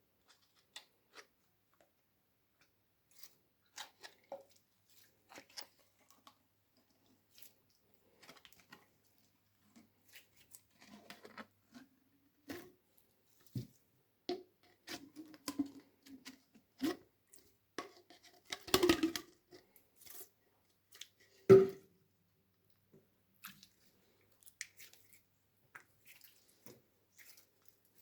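Slime being squished and worked by hand: scattered small sticky clicks and pops, busier in the middle, with two louder squelches about two-thirds of the way through.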